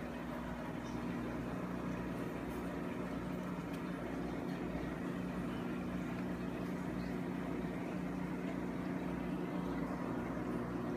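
Steady low mechanical hum with a hiss over it, from running aquarium equipment such as the air pump and filter that drive the tank's bubble curtain.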